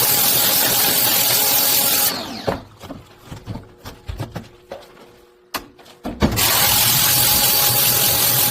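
A motor-driven power tool runs loudly with a steady hiss, then winds down about two seconds in with a falling whine. A few seconds of handling clicks and knocks follow before it starts up again near the six-second mark.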